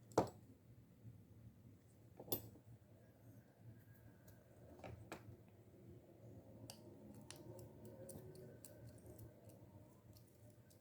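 Small clicks and taps of fishing reel parts being handled during disassembly: a sharp click just after the start, another about two seconds in, two more around five seconds, then a scatter of light ticks with faint rubbing in the second half.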